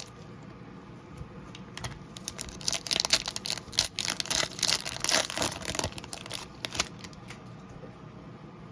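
A 2022 Topps Garbage Pail Kids Chrome trading-card pack wrapper crinkling and tearing as it is opened. There is a dense crackle from about two and a half seconds in, loudest in the middle, dying away about a second before the end.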